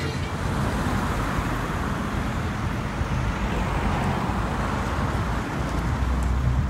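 Steady road traffic noise: a continuous rush of car engines and tyres on a city street.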